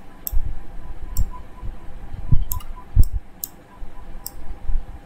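Scattered sharp clicks, about six spread over five seconds, with two soft low knocks near the middle, from a computer pointing device used to hand-write numbers on screen.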